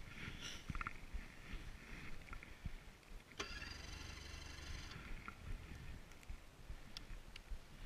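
A snowmobile's electric starter whirs for about a second and a half, about three and a half seconds in, and the engine does not catch. Soft rustling and a few light knocks on the helmet microphone come before and after it.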